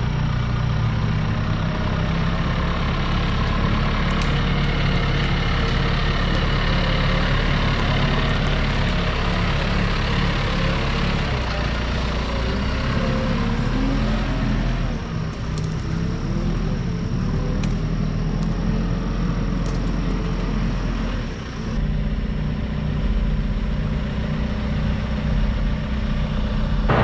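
Backhoe's diesel engine running steadily under load, with a higher whine that wavers up and down in pitch midway through.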